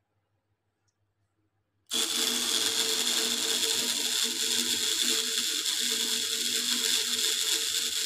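Near silence, then about two seconds in a machine mechanism starts up suddenly and keeps running with a steady, dense mechanical clatter.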